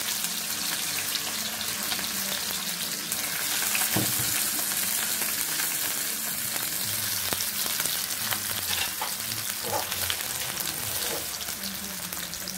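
Garlic cloves and a little ginger frying in sesame oil in a steel kadai: a steady sizzle with scattered small crackles and pops.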